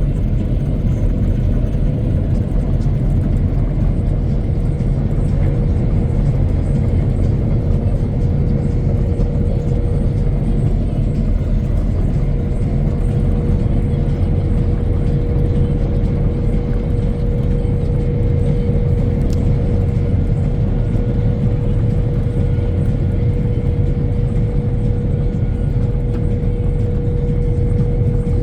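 Engine of a mowing machine running steadily under load, with a steady high whine over the low engine drone.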